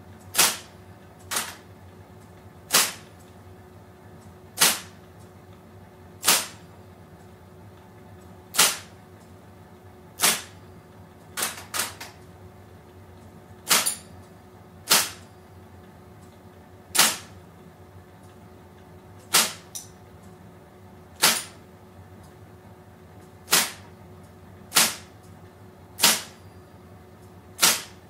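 Electric typewriter typed slowly with one finger: single sharp key strikes, one every second or two at an uneven pace, a few coming as quick pairs. Its motor hums steadily underneath.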